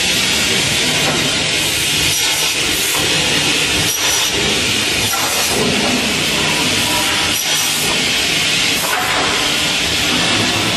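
Salvador Superpush 250 automatic crosscut saw running with a steady hiss of machinery while its roller pusher feeds the timber, with a few brief knocks.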